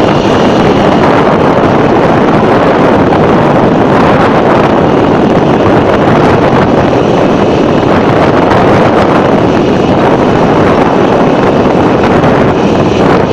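Loud, steady wind noise rushing over the microphone of a phone filming from a moving vehicle, mixed with the vehicle's road noise.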